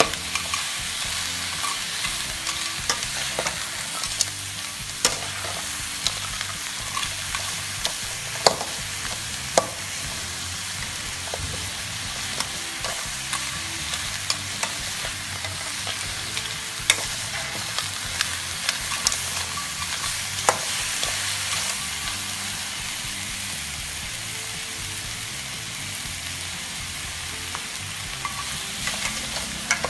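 Crabs and sliced onions sizzling in a hot metal wok while a metal spatula stirs and turns them, with a steady frying hiss and scattered sharp clacks of the spatula against the wok.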